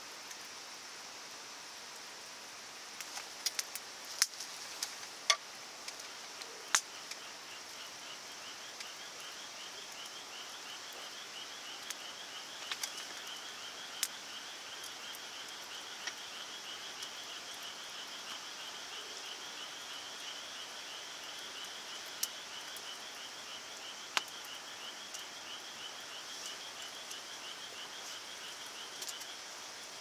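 Wood fire crackling, with scattered sharp pops over a steady hiss. From about seven seconds in, an insect trills steadily in a fast, even pulse.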